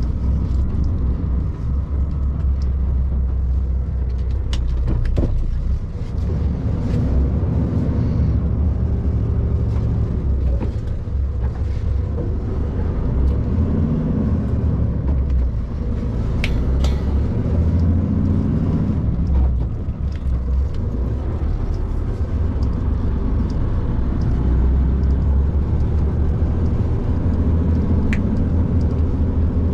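Tatra Phoenix 460 6x6 truck's diesel engine running low and steady, heard from inside the cab as it drives slowly across a rough field, with a few sharp knocks and rattles from the cab and body.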